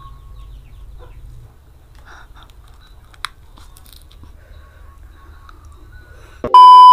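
Close-up chewing of a mouthful of fried flat rice noodles, with a sharp click about three seconds in. Near the end, a loud steady electronic beep tone cuts in.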